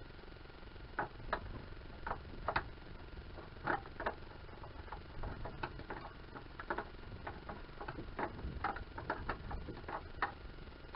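Irregular small plastic clicks and ticks as gloved fingers handle the fuses, relays and clips of an under-hood fuse and relay box, bunching closer together in the second half.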